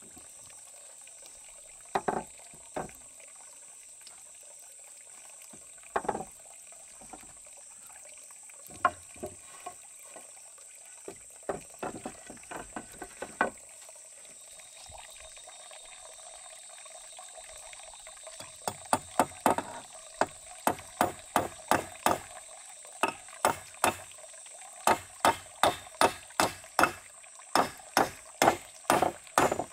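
Hammer blows on wooden poles: a few scattered knocks in the first half, then from about two-thirds of the way in a steady run of sharp hammer strikes, two or three a second. A steady high hiss sits underneath throughout.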